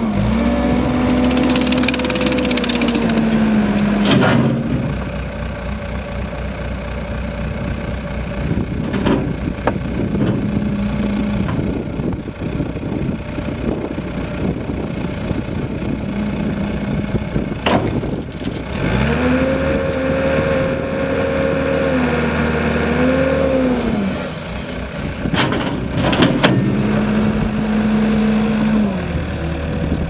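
Caterpillar 287 compact track loader's turbocharged diesel engine running as the machine drives and manoeuvres. The engine speeds up and holds three times and drops back in between. A few sharp clanks come from the machine.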